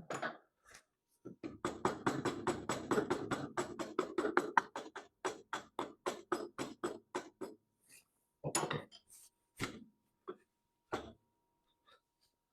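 Hand-tool work on metal machine parts: a fast, even run of clicks, about five a second for several seconds, then a few separate knocks.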